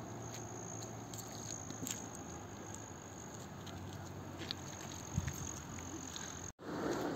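Quiet outdoor background with a faint steady high-pitched whine and a few light ticks and taps. It breaks off briefly near the end and comes back as a louder rustling noise.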